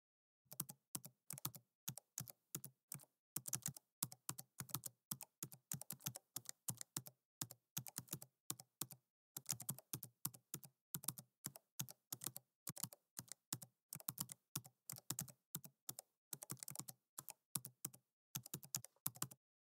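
Computer keyboard typing sound effect: rapid key clicks in quick runs broken by short pauses, timed to text appearing letter by letter on screen.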